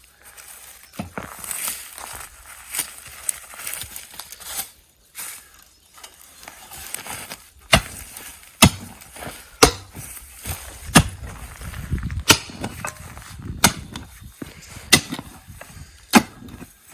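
A digging tool working hard clay soil to widen a fence-post hole: scraping and shuffling at first, then about eight sharp chopping strikes a little over a second apart.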